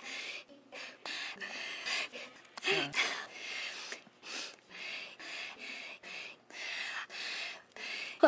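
A woman panting: short audible breaths in and out, about two a second, with a brief voiced sound about three seconds in.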